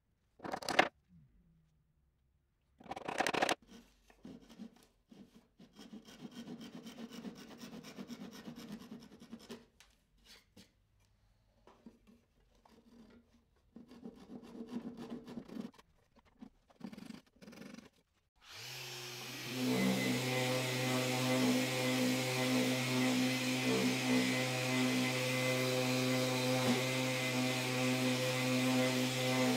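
Hand work on an oak crate, first a couple of sharp wooden knocks, then bouts of scratchy rubbing strokes, such as a thin saw trimming pins flush. About two-thirds of the way in, an electric random orbital sander starts and runs steadily with a humming motor. The sander is the loudest sound.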